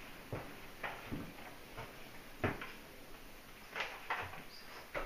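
Footsteps and light knocks from a person walking through a house and a doorway, about nine short, irregularly spaced thuds and clicks.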